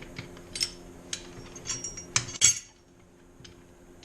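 Sharp metal clinks and clanks of loose three-point hitch pins, collars and links being handled and gathered together. There are several separate clinks, the loudest about two and a half seconds in, then it goes quieter.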